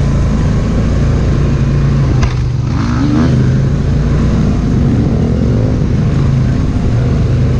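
Polaris 1000 ATV engine running at steady trail speed, with a brief lift off the throttle about two seconds in and a quick rise and fall in revs just after.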